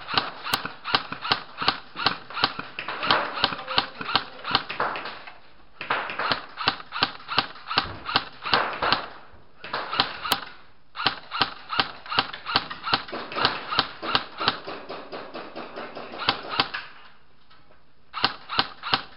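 Airsoft guns firing in long rapid strings of sharp shots, about five a second. The firing breaks off briefly about six and ten seconds in, and for about a second near the end, before starting again.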